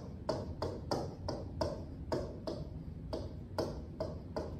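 A stylus or pen tip tapping and scraping on the glass of an interactive touchscreen display while handwriting, giving light ticks about four a second over a low room hum.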